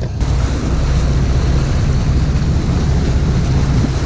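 Sportfishing boat's engines running with a steady low drone, under a wash of wind and water noise.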